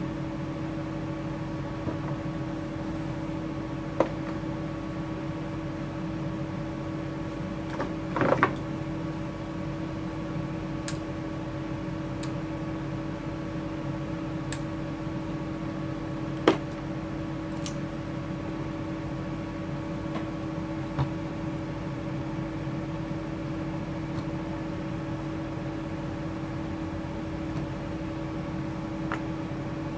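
Milwaukee M18 wet/dry vacuum's DC motor running steadily with a constant hum, the noise of a failing front bearing. A few knocks from handling, the loudest a cluster about 8 seconds in and a sharp one about 16 seconds in.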